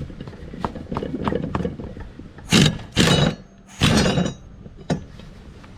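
Tool work on a zero-turn mower's blade bolt as the last blade is taken off. Small metal clicks and clinks come first, then three short, loud, noisy bursts about halfway through.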